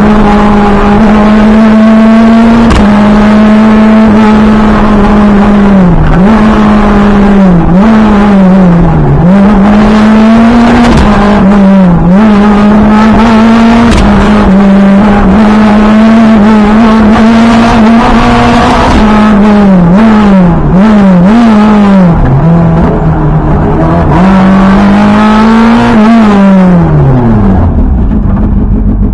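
Renault Clio rally car's four-cylinder engine heard from inside the cabin at full attack, held high in the revs with quick dips and rises at each gear change and lift. Near the end the revs fall right away as the car brakes hard, then pick up again.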